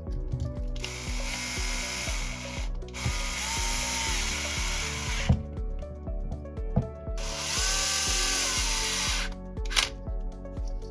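Power drill running in three bursts of about two seconds each, each spinning up and winding down, over background music.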